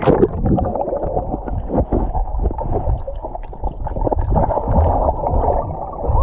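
Muffled underwater sound of a swimmer moving in the sea: dense crackling bubbles and low rumbling water, dull and without any highs, starting with a splash as the camera goes under.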